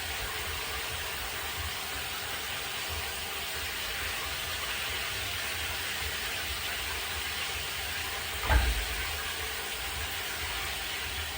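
Steady rain, heard as an even hiss. About eight and a half seconds in there is a single short, low thump.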